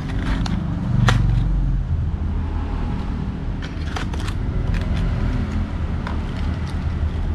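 The last items being taken out of a hard-disk retail box: scattered crackles and clicks of cardboard and plastic packaging being handled. A steady low rumble runs underneath.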